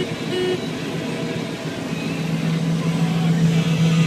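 Steady engine drone of heavy harvest machinery running at constant speed, with two short high tones right at the start.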